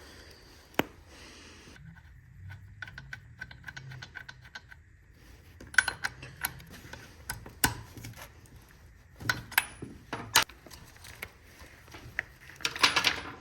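Hand work on an old Stihl chainsaw: scattered clicks, taps and light clatter of the saw's parts and tools being handled. A run of quick small ticks comes a couple of seconds in, and a louder rattle comes near the end.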